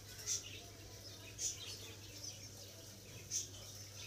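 Three faint, short, high chirps, birdlike, over a low steady hum.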